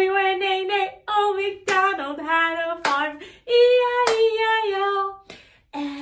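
A woman singing a children's song unaccompanied, in held notes and short phrases, cut by three sharp clicks.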